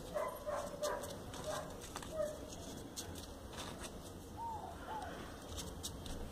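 Faint rustling and light clicks of small folded paper pieces being handled and pushed into a modular origami model, with an animal whining faintly in the background, ending in two short rise-and-fall calls past the middle.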